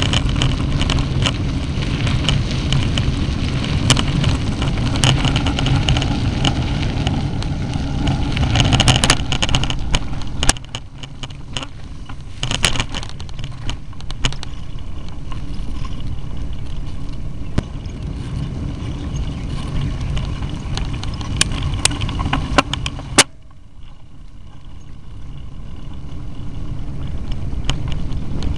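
Bicycle ride heard through the action camera's own microphone on the bike: a steady rumble of tyres and frame on a rough, puddled dirt track, with many sharp rattling clicks from bumps. The rumble drops somewhat about ten seconds in, falls away sharply about two-thirds through, then slowly builds again.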